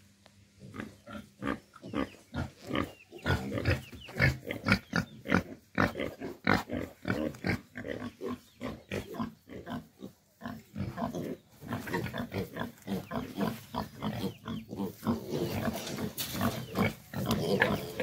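Pigs grunting in a rapid run of short calls, several a second, more crowded together over the second half.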